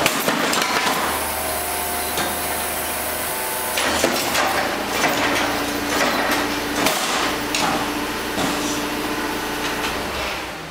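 Heavy metal lathe hanging on chains from a forklift's forks, bouncing and swaying in a drop test: chains rattling and metal and wood knocking over and over. A low engine hum runs under the first half, and the clatter eases near the end as the load settles.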